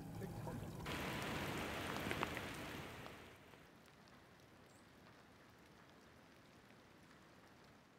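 Rain falling, an even hiss that starts about a second in with a few sharper drips around two seconds, then fades to a faint patter.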